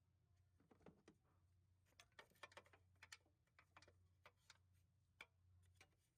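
Faint, irregular clicks and light taps of hand tools and small engine parts being handled, over a low steady hum.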